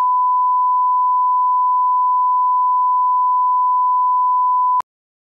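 A 1 kHz sine test tone, the line-up tone that goes with broadcast colour bars, held steady at one pitch and cut off abruptly with a click near the end.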